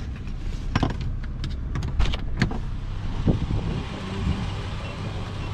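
A car running, heard from inside the cabin: a steady low rumble, with a handful of sharp clicks between about one and two and a half seconds in.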